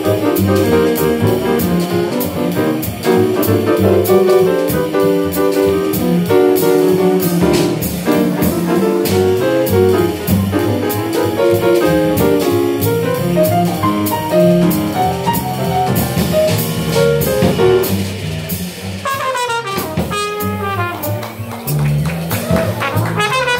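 Small jazz combo playing live: a horn, most likely saxophone, solos over piano, a low bass line and a drum kit keeping time on the cymbals. Near the end the horn breaks into fast wavering runs.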